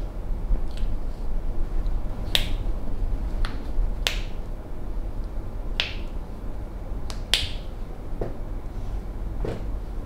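Sharp snapping clicks from a massage therapist's hands, about six of them at uneven intervals, followed by two duller knocks near the end. A steady low hum runs underneath.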